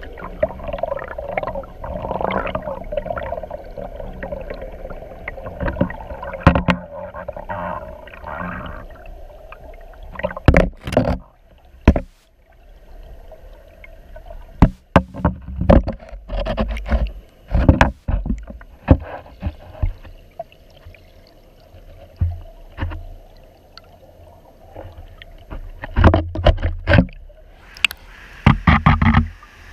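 Rushing river water heard through a submerged waterproof camera housing: a muffled underwater rush for the first several seconds, then repeated sharp knocks and splashes as the camera bobs in and out of the current.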